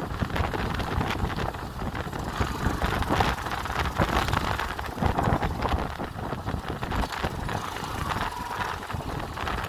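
Wind buffeting the microphone on a moving motorcycle, in irregular gusts, with the motorcycle's engine running underneath.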